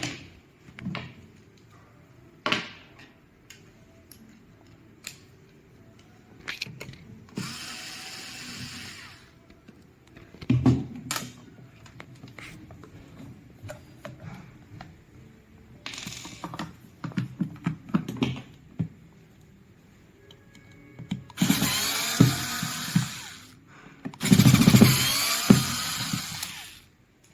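Power screwdriver running in four short bursts, the last two longest and loudest, working the screws of a macerator pump's housing, between clicks and knocks of parts and screws being handled.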